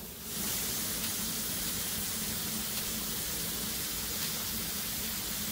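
Plantain slices sizzling in oil on a hot Blackstone flat-top griddle: a steady hiss that starts suddenly about half a second in.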